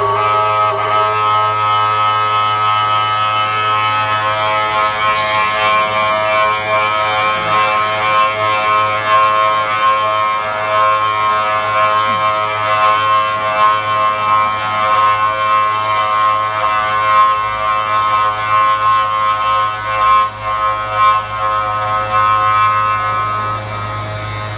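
CNC drilling machine's spindle motor running at speed with a steady high whine over an electrical hum. The whine stops about a second before the end, leaving only the hum.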